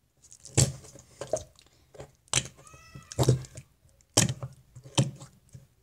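Slime in a plastic cup being pushed and pumped with a finger, squelching out trapped air as a string of about six short fart noises, with one drawn-out squeaky one about halfway through.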